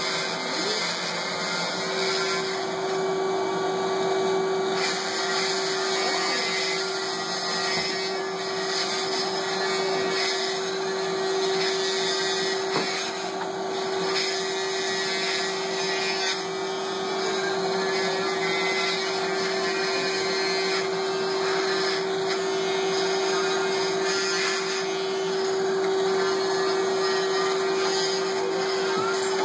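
Oscillating cast saw running continuously with a steady, unchanging hum, its blade grinding through a fiberglass arm cast as it is cut off.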